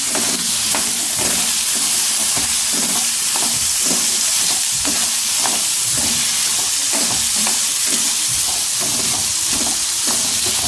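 Chunks of ash gourd sizzling in hot sesame oil in a pan, with a spoon stirring them in repeated short scrapes.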